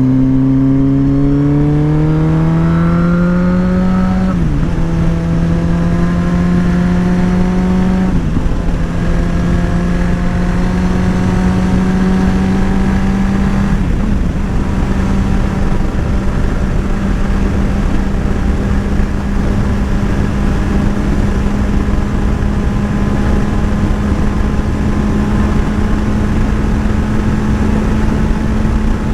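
Motorcycle engine accelerating through the gears: the pitch rises, then drops with an upshift about four, eight and fourteen seconds in, before the engine holds a steady cruising note.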